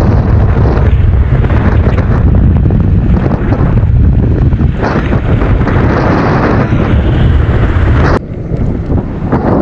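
Heavy wind buffeting the microphone of a handlebar-mounted camera on an electric scooter moving at speed, a dense low rumble. It drops sharply about eight seconds in and builds again near the end.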